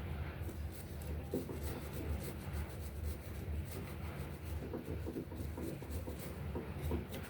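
Rapid scratchy rubbing strokes of hand scrubbing or scraping on the paint gun's parts during cleaning, over a steady low hum.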